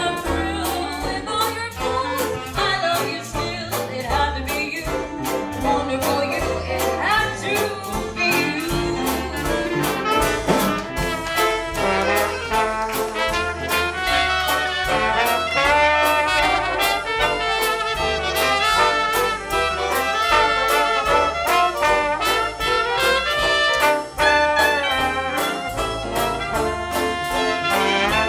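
Live Dixieland jazz band playing, with brass horns carrying the tune over a steady beat.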